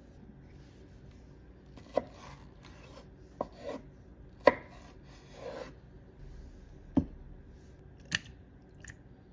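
Knife chopping aloe vera gel on a wooden cutting board: sharp blade knocks at irregular intervals, with softer sliding, scraping sounds between them and a last short click near the end.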